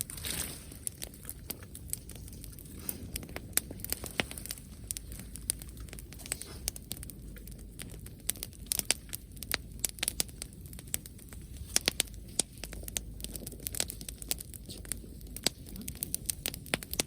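Campfire crackling, with irregular sharp pops and snaps over a low steady hiss.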